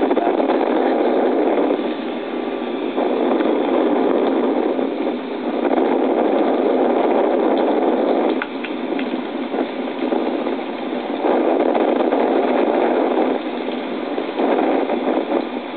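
Wind rushing over the camera microphone high in the air under a parasail, a loud, steady rush that swells and eases every few seconds.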